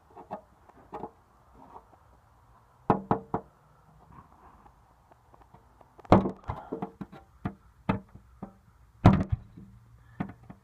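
Homemade knife blade striking and working into the wall of a rusty steel barrel. A series of sharp metallic knocks, bunched in groups about three, six and nine seconds in, with the drum's sheet metal ringing briefly after the hardest blows.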